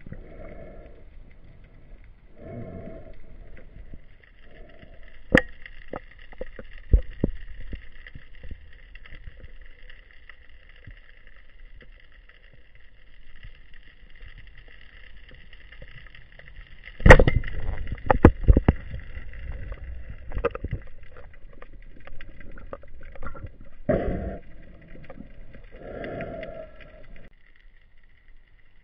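Underwater sound heard through a camera housing: low muffled swishes and scattered sharp clicks and knocks from the diver's speargun and gear. The loudest burst of clicks and knocks comes about 17 seconds in, over a faint steady high whine.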